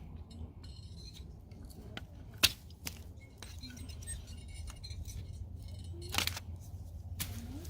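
Scattered clicks and snaps of PVC water pipe being cut and worked loose by hand, with a sharp snap about two and a half seconds in and another around six seconds, over a low steady rumble.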